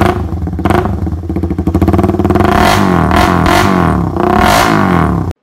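Suzuki Raider 150 carb's single-cylinder four-stroke engine revving loud through a Daeng Sai4 open exhaust pipe: a fast, popping run, then three throttle blips that rise and fall in pitch in the second half, cut off suddenly at the end.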